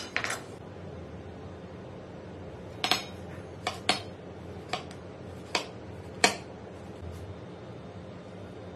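Sharp, irregular clicks and knocks of kitchen work on a cutting board, about seven in all, over a faint steady hum.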